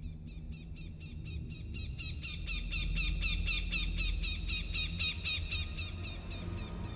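A rapid run of high chirps, about five a second, from a night animal. It swells to its loudest midway and stops near the end, over a steady low rumbling drone.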